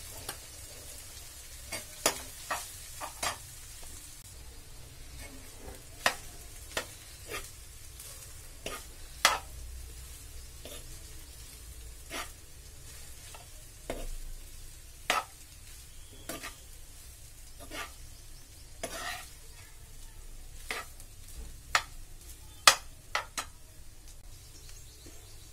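A steel spoon stirring and tossing cooked rice and scrambled egg in a frying pan, scraping and knocking against the pan at irregular moments, over a faint steady sizzle of frying.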